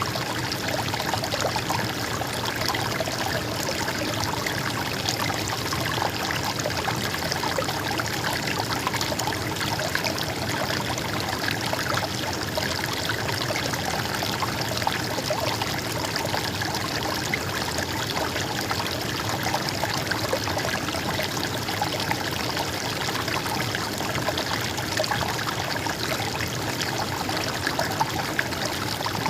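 A stream of water flowing and trickling steadily, with a constant babbling splash.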